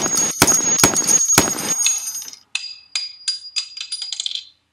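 Four gunshot sound effects in about a second and a half, each with a ringing tail, then a spent brass casing bouncing on a hard surface, its ringing pings coming faster and faster until it settles.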